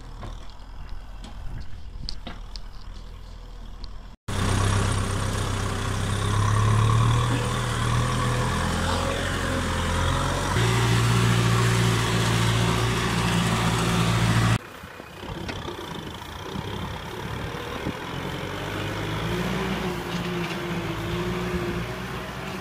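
Farm tractor diesel engine running as it works, first pulling a rotary tiller, later towing a loaded trailer. About four seconds in the sound cuts out for an instant. A louder, steady low drone replaces it and stops sharply some ten seconds later, when the tractor engine sound returns.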